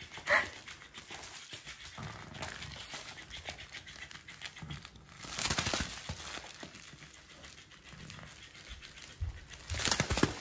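Rustling and scuffling as a Boston terrier paws and noses at a plush electric flopping fish toy on a mat, with two louder bouts of crinkling, one around the middle and one near the end.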